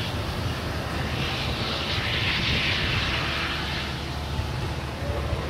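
Amtrak Pacific Surfliner passenger train pulling away: a steady rumble from the diesel locomotive with the rush of wheels on rails, which swells for a couple of seconds in the middle.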